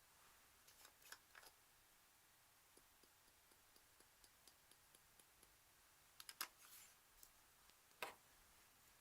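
Faint, scattered sticky clicks and pops of slime being handled: a few around a second in, a quick cluster just after six seconds and one sharper click near the end, over a near-silent background.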